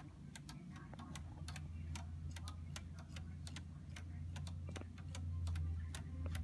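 Wooden laser-cut gear clock with a pendulum escapement, ticking in rapid, even clicks, over a low steady hum.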